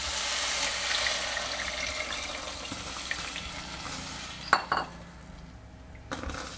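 Sautéed vegetables in a hot pan sizzling as vegetable stock goes in, the hiss fading over a few seconds as the liquid settles. Then a spatula stirring the soup knocks against the pot twice, with one more knock near the end.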